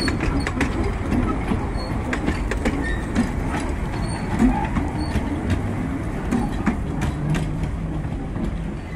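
Narrow-gauge railway passenger carriages rolling past and away: a steady low rumble of wheels on track with irregular clicks as the wheels cross rail joints, easing slightly near the end.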